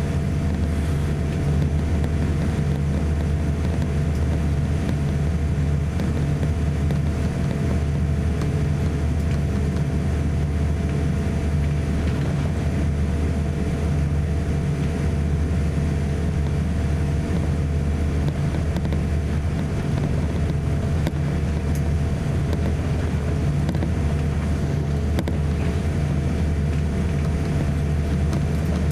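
Cabin noise of a Boeing 787-8 taxiing: a steady hum from its Rolls-Royce Trent 1000 engines at low taxi power and the cabin air system, with a few faint steady tones above it.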